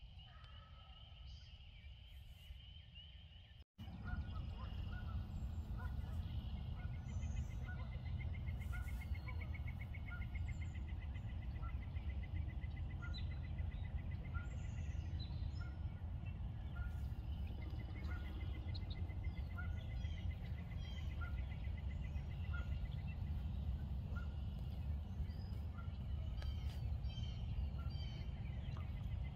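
Outdoor spring field ambience: a steady low rumble, with a short high call repeating about once a second and a long rapid trill that comes and goes. About four seconds in, the sound cuts out for an instant and comes back louder.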